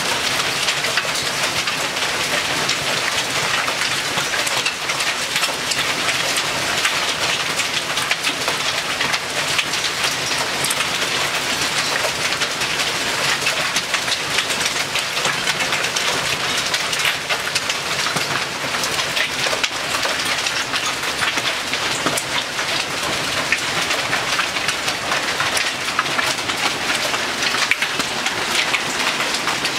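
Hail and rain pelting down in a storm: a loud, steady stream of countless small impacts.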